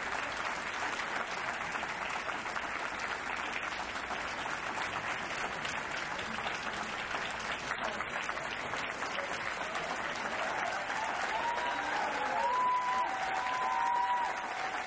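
Large audience applauding steadily, swelling into a standing ovation, with a few high cheering voices over the clapping near the end.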